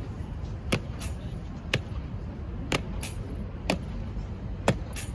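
Kremlin honour guard's boots striking the granite pavement in a slow ceremonial march, a sharp step about once a second, over a low steady rumble.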